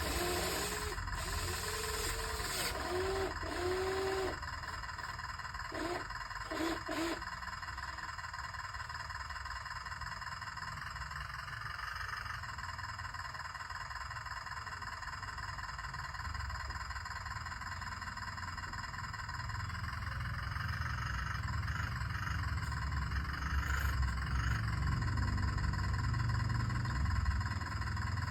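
Radio-controlled excavator's small electric motors and pump whirring steadily, with a deeper rumble building over the last ten seconds or so.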